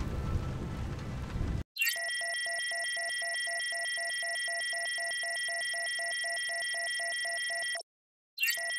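Synthesized electronic logo sting: after a brief faint hiss, steady high electronic tones with a fast pulsing beep about five times a second. They cut off about eight seconds in and restart with a short rising sweep near the end.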